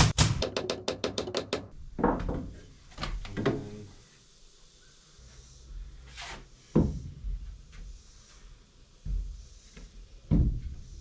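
Knocks and thunks of boards and tools being handled during cabinet building: a fast run of sharp taps in the first second and a half, then single knocks spaced a second or more apart.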